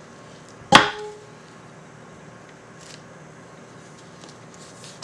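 A soap loaf cutter snapping down through a loaf of cold-process soap: one sharp clack with a brief ringing tone, then only faint handling ticks.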